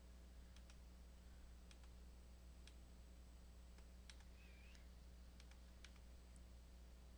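Near silence with faint computer mouse clicks, about a dozen scattered single and double clicks, over a low steady hum.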